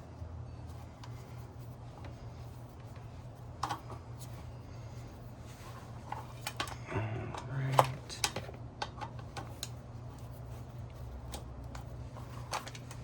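Hand tools clicking and clinking against metal as motorcycle bolts are worked loose, in scattered sharp taps with the sharpest about eight seconds in, over a steady low hum.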